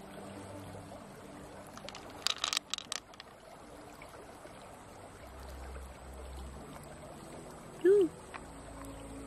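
Pearls dropped onto a pile of pearls in an opened freshwater mussel shell, a quick cluster of clicks about two seconds in, then fingers working wetly through the mussel's flesh. A short pitched blip near the end is the loudest sound, over faint background music.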